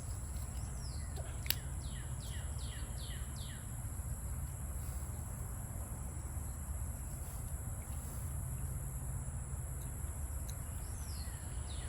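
Outdoor ambience: a bird gives a run of about eight quick falling notes in the first few seconds and one more near the end, over a steady high-pitched insect drone and a low rumble. A single sharp click about a second and a half in.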